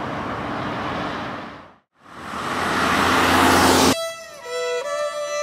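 Road traffic noise from cars on a wet road fades out, then swells back and grows louder. About four seconds in it is cut off by solo violin music, with notes that slide between pitches.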